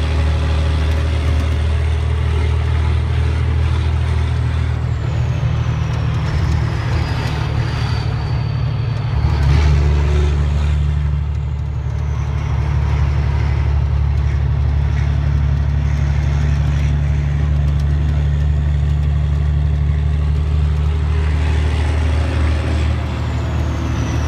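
1996 Mack CH's Mack E7 diesel running through straight pipes with no muffler, a loud, steady, deep drone heard from the cab as the truck drives. About nine seconds in its pitch shifts and it briefly gets louder.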